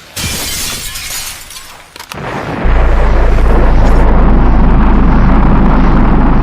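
Action-film destruction effects: a sudden crash at the start that dies away, a second sharp hit about two seconds in, then a loud, steady, deep rumble.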